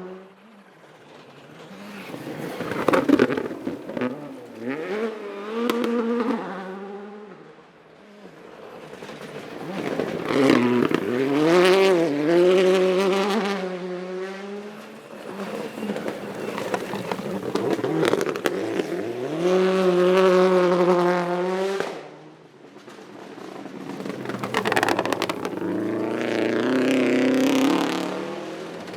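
Rally cars at full throttle on a forest stage. The engines rev hard, the pitch drops sharply at each gear change and rises again. About four loud runs come in succession, each swelling and fading as the car passes.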